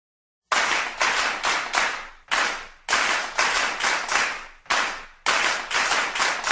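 Rhythmic claps, each with a short echoing tail, in groups of three or four about two a second: the clap beat that opens a backing music track.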